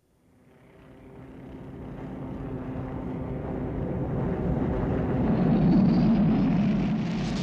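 The Batwing's jet-engine rumble swells up out of silence and grows steadily louder as the aircraft approaches, with a faint rising whine near the end.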